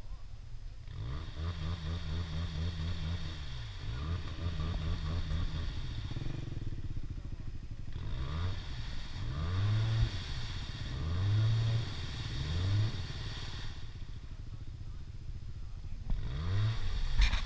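Arctic Cat Wildcat side-by-side's engine revving again and again, rising and falling in short bursts with brief lulls, as it works through deep mud.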